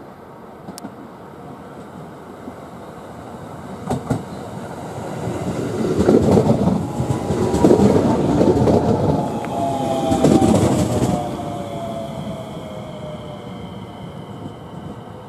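A JR West 521 series electric train pulls in and passes close by, its wheels clacking and rumbling, loudest in the middle. Its motor whine falls in pitch as it slows, and a thin high squeal follows as it comes to a stop.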